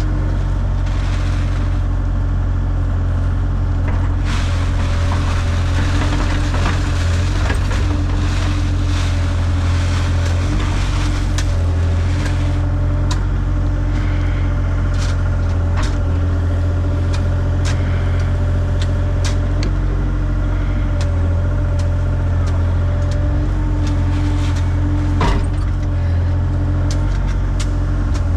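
Excavator's diesel engine running steadily under load, a low drone with a steady whine over it, while the bucket throws dirt in around an oil tank: a rush of falling soil in the first half, then scattered clicks and knocks of stones and bucket.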